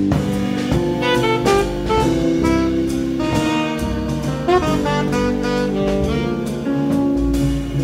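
Instrumental background music: a melody of held, changing notes over drums.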